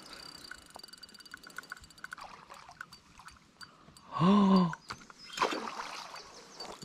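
Faint water lapping and small clicks, then about four seconds in a man's short drawn-out wordless exclamation, loud and falling at the end, followed by a brief burst of noise.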